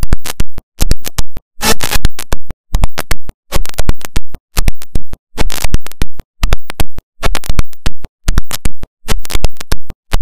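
Loud music from a projected video's soundtrack, heard in choppy, stuttering bursts about two or three a second, each cut off by a sudden silence.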